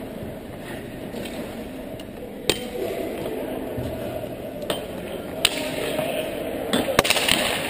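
A handful of sharp clacks from hockey pucks and sticks striking the boards and ice, spread over a few seconds, over the steady background noise of an indoor ice rink.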